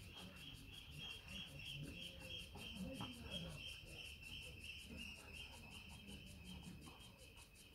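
Faint, steady insect chirping, pulsing evenly several times a second.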